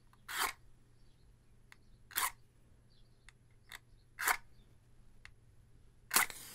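A Redheads safety match struck against the striker on the side of its box: four short scrapes about two seconds apart. The fourth, the loudest, catches, and the head flares with a hiss near the end.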